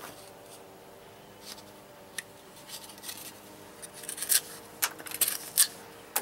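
Axe edge carving slivers off a thin wooden board: a run of short, dry scraping cuts, a few spaced out at first and coming quicker and louder in the last couple of seconds.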